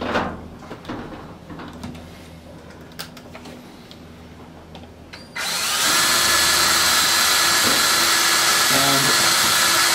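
Electric drill with a 1/8-inch bit boring into the edge of a model plane's control surface to drill out a Robart hinge. There is faint handling for about the first half, then the drill starts suddenly and runs with a steady whine.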